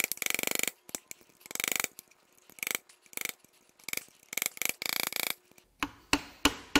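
Ratcheting wrench clicking in quick short bursts as it backs out the bedplate bolts of an N14 engine, with a few single metal clicks near the end.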